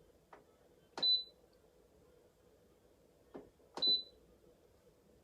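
Electric multi-cooker's control panel being set: two button presses about three seconds apart, each a light tap followed by a short, high electronic beep.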